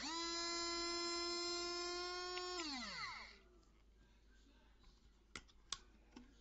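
Small battery-powered portable blender motor spinning its blade in an empty cup with a steady whine for about two and a half seconds, then winding down in pitch as it is switched off. A couple of light clicks follow later.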